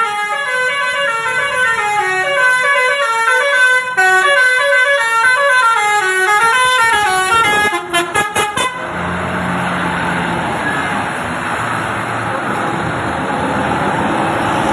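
Basuri-type telolet multi-tone bus horn playing a melody of stepped notes that rise and fall, ending about eight seconds in with a few short, quick toots. After that the horn stops and a steady rushing noise takes over.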